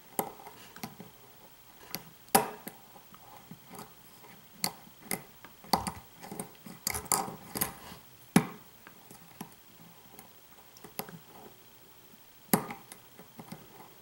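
Fast Charlie hook pick working the pins of a Cold Bore challenge lock: faint scattered ticks and taps of metal in the keyway, with a handful of sharper clicks spread through, the clearest about two and a half, six, seven and a half, eight and a half and twelve and a half seconds in.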